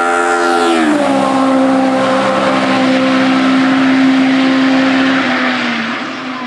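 Hillclimb race car passing at full throttle: its high, steady engine note drops in pitch as it goes by about a second in. It then holds a lower note and fades near the end.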